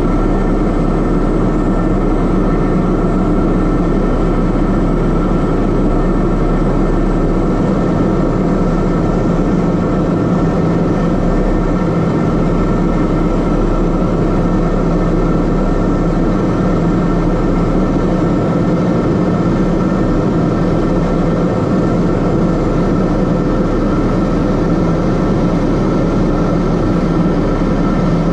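Cockpit noise of a Piper M600 in cruise: a steady low drone from its Pratt & Whitney PT6A turboprop engine and propeller, with the rush of air around the cabin.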